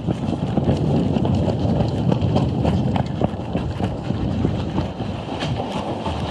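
Running footsteps crunching on gravel, heard as irregular knocks over a steady rumble of wind buffeting a body-worn camera's microphone.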